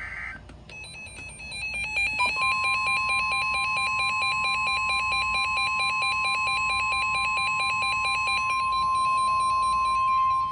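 NOAA Weather Radio alert tones. A rapidly warbling electronic alarm beep starts about half a second in. The steady single-pitch 1050 Hz warning alarm tone joins about two seconds in, and the warbling stops shortly before the tone does. The tone marks a warning message about to be broadcast.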